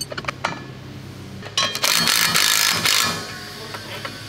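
Cordless impact driver running a nut down onto the steel sprocket-ring bolts for about a second and a half, after a few sharp metal clicks as the socket goes onto the nut.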